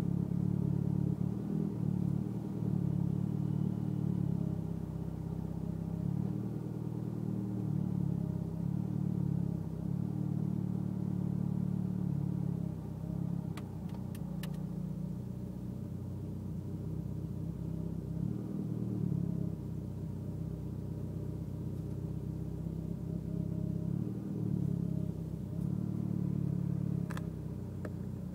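Mitsubishi Lancer Evolution X's turbocharged four-cylinder engine idling roughly, its low note swelling and sagging unevenly rather than running smooth. A few faint clicks come about halfway through and near the end.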